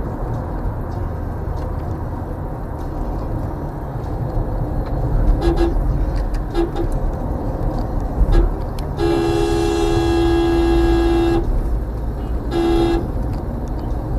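Vehicle horn sounding over steady road and engine rumble heard from inside a moving car: a few short toots, then a long blast of about two and a half seconds, then one more short toot.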